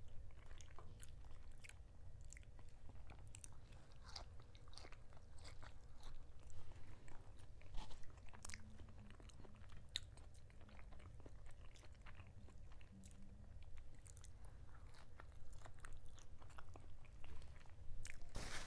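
Faint, close-up chewing and biting of food: soft, irregular wet clicks and smacks from the mouth, scattered all through.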